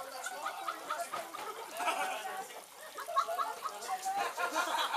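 Indistinct voices talking, with no clear words.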